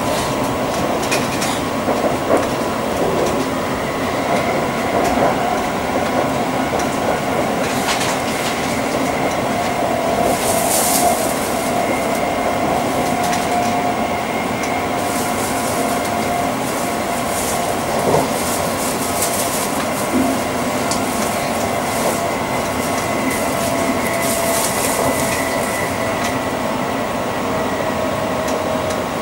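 Crossrail Class 345 electric multiple unit running between stations, heard from inside the carriage: a steady rumble of wheels on track with a steady whine, occasional clicks over rail joints, and a couple of brief hisses.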